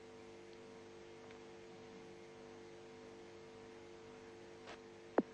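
Steady low electrical hum with faint hiss on the broadcast audio line, made of several steady tones. A single sharp click comes near the end.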